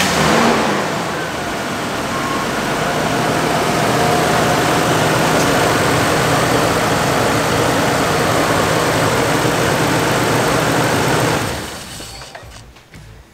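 Toyota 80 Series LandCruiser's petrol straight-six idling steadily just after a fresh oil change, run until the oil pressure light goes out. It is switched off about eleven seconds in and the sound dies away.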